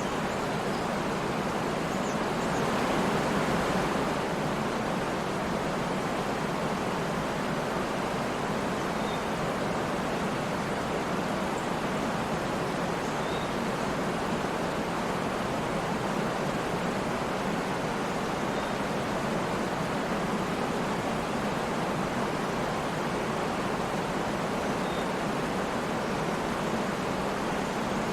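Waterfall: a steady, unbroken rush of falling water, swelling slightly about three seconds in.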